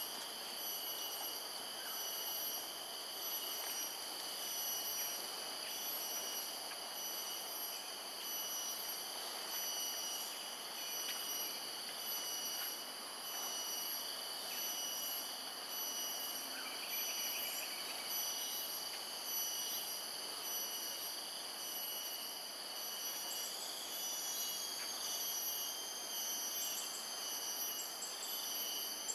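A steady chorus of insects, several constant high-pitched tones trilling together without a break, over a soft background hiss.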